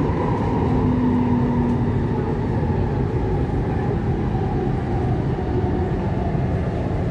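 Taipei Metro C301 steel-wheel train running, heard from inside the car: a steady rumble of wheels on rails, with a faint high tone that falls slightly in pitch.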